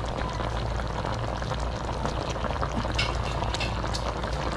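Coconut-milk gravy simmering in a wok: a steady bubbling hiss with small pops, and a few sharper pops about three seconds in.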